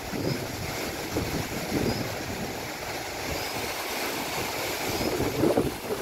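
Wind buffeting the microphone over a steady rushing noise, with gusty low bursts that come and go. A faint short high chirp repeats about every second and a half.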